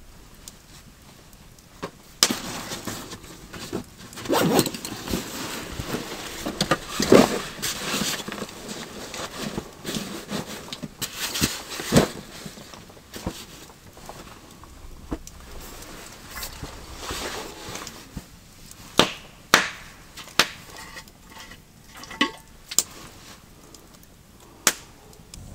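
Rustling and handling of gear and bedding being laid out on the shelter floor, heaviest in the first half, with several sharp clicks and knocks spread through the second half.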